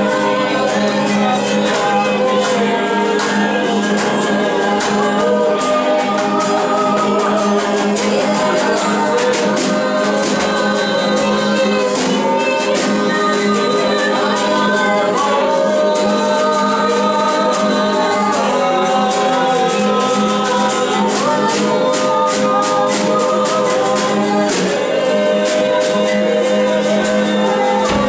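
Congregational worship singing: a woman and a man at microphones lead a standing congregation in a slow, free-flowing worship song, with light percussion shaking along.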